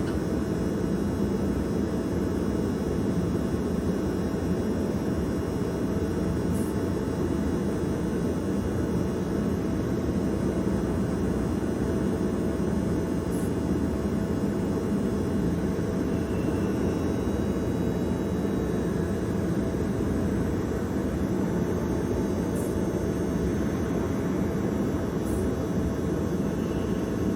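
Marvel Series 8 Mark III vertical bandsaw running with its 5 hp motor: a steady mechanical hum and rumble with a faint steady tone above it.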